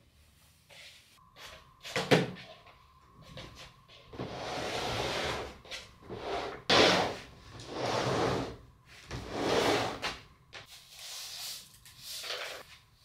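Household cleaning noises: a couple of sharp knocks, and repeated rustling swishes of a large fabric sheet being handled over a sofa.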